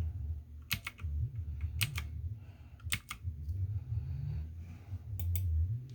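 Computer keyboard keys clicking a few times, some in quick pairs, over a low rumble.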